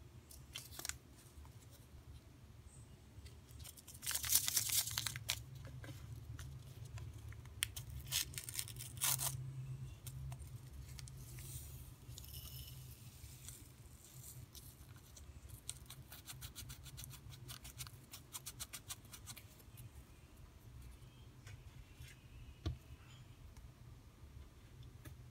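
A small paper salt packet torn open, with two loud ripping tears about four and eight seconds in. The packet then rustles as salt is shaken out into a plastic cup in a run of small light ticks.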